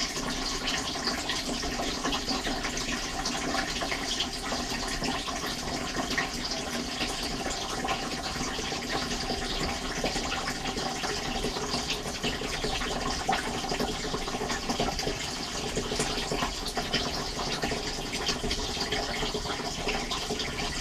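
Dishwasher running, heard from inside the tub: steady rushing and splashing of water, with a faint hum underneath.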